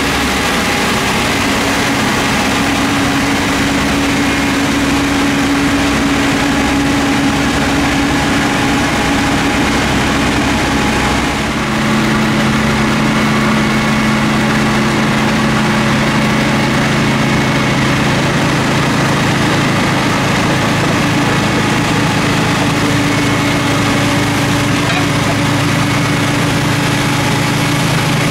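Engine and rotary blower head of a subway snow-thrower work train running steadily while it throws snow off the tracks. The engine note changes after a brief dip about twelve seconds in.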